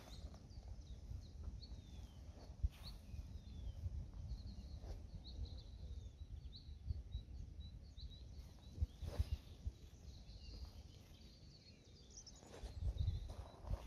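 Small birds chirping and twittering, many short high calls one after another, over a low steady rumble with a few faint knocks.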